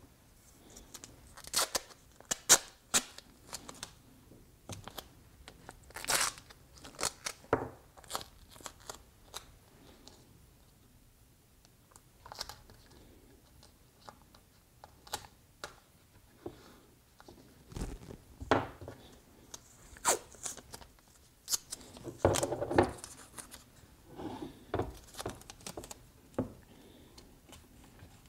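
Painter's tape and duct tape being pulled off the roll and torn by hand: short rips and crinkles, some in quick runs, with quiet pauses between. A few dull knocks come in the second half.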